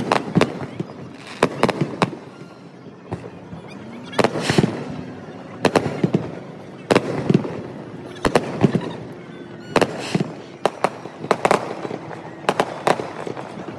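Aerial fireworks shells bursting in an irregular run of sharp bangs, several coming in quick clusters of two or three.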